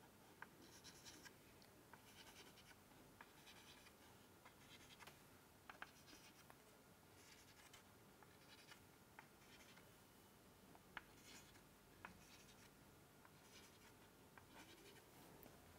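Chalk tapping dots onto a chalkboard one by one: faint short taps about once a second, with a few sharper clicks among them.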